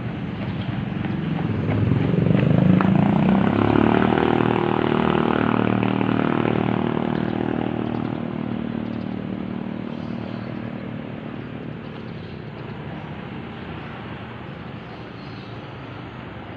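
A motor vehicle passing by: its engine grows louder over the first three seconds, then slowly fades away.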